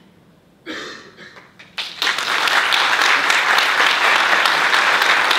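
Audience applause: after a short lull, a large crowd starts clapping abruptly about two seconds in, and the clapping holds steady and dense.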